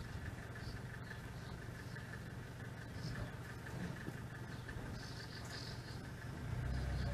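Steady low engine hum, growing a little louder near the end, with a few faint clicks and rubs of fingers handling a small plastic toy plane.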